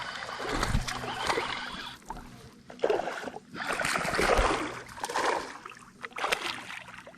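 Water splashing in irregular bursts beside a small boat: a hooked bass thrashing at the surface as it is brought in.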